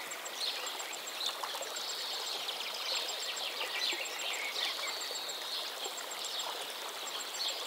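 Nature ambience: birds chirping over a steady hiss like running water, with short groups of high pips repeating every second or so.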